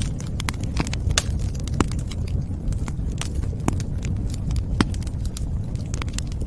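Wood fire burning in a fireplace, crackling with frequent, irregular sharp pops over a steady low rumble.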